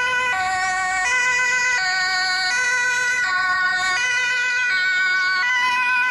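Ambulance two-tone siren alternating between a lower and a higher pitch, each note held about three-quarters of a second, in the European hi-lo pattern.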